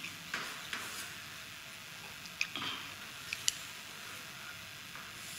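Chalk drawing lines on a chalkboard: quiet scraping with a few short, sharp taps as the chalk strikes the board.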